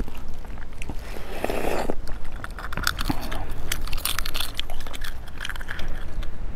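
Close-miked eating sounds: chewing early on, then from about two seconds in many small crackles and clicks as the shell of a boiled partially incubated egg is cracked and peeled off by hand.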